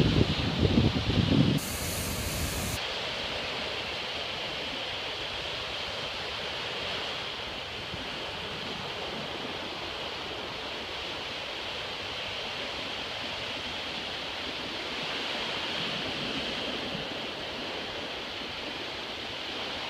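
Surf washing onto a sandy beach, a steady even hiss of breaking waves. In the first second and a half a loud low rumble of wind buffets the microphone.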